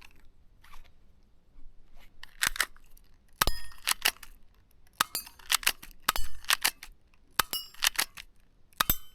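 Crown Walther PPK/S spring air-cocking pistol being worked by hand: short clusters of two to four sharp clicks and clacks from its mechanism, about every second, some with a brief metallic ring.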